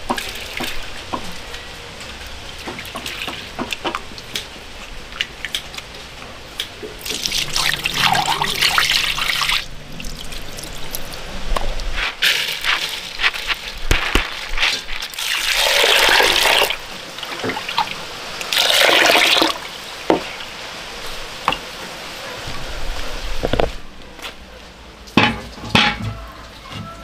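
Water sloshing and pouring in several surges, with wet handling clicks, as soaked split mung beans are rinsed by hand in a basin and tipped into a pot.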